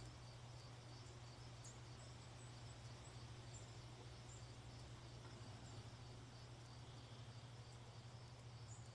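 Near silence: a faint steady low hum, with faint high chirps repeating throughout.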